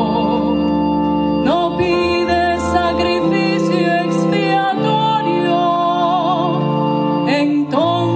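A woman cantor singing a psalm verse with vibrato over held organ chords. The chords change every second or two.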